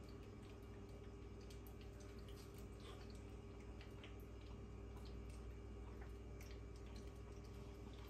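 Quiet kitchen room tone: a steady low hum with scattered faint soft ticks and clicks.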